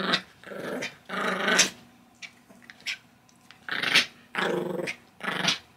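Small puppy growling in play during a tug-of-war with a rope toy, in several short growls with brief gaps between them.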